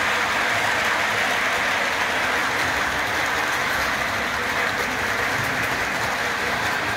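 Model freight train running on three-rail track: a steady whir from its motor and rolling wheels, even in level throughout.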